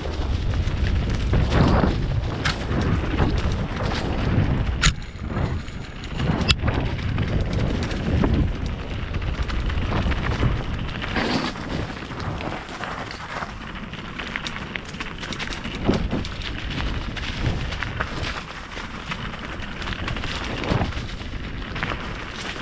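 Wind rushing over the microphone and a mountain bike's tyres and frame rattling over the trail on a fast downhill run. Two sharp knocks come about five and six and a half seconds in.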